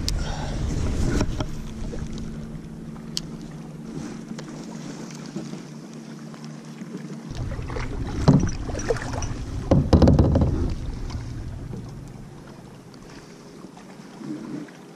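Wind on the microphone and water moving around a kayak, with two louder rushes of noise about eight and ten seconds in.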